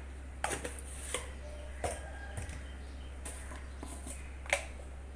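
Scattered light clicks and taps of kitchen utensils and steel containers being handled, about seven in all, the sharpest about four and a half seconds in, over a steady low hum.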